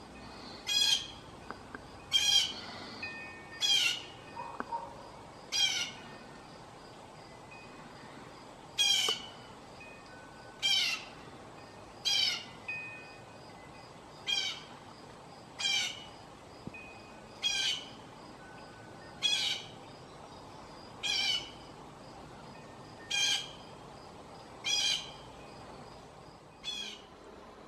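A blue jay calling over and over: a short, harsh call about every one and a half to two seconds, about fifteen in all, with one longer pause partway through.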